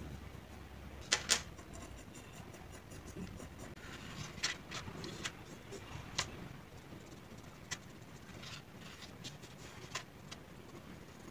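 Mechanical pencil drawing on paper: faint scratching of strokes with scattered light clicks and taps, the loudest two about a second in.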